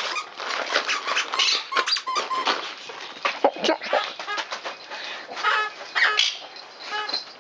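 Dogs tearing open gift-wrapped presents: wrapping paper crinkling and ripping in quick bursts, with a few short squeaks about five to seven seconds in.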